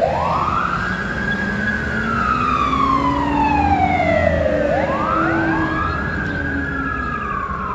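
Fire truck siren wailing: the pitch climbs quickly, then sinks slowly over several seconds, and does this twice, over a low rumble underneath.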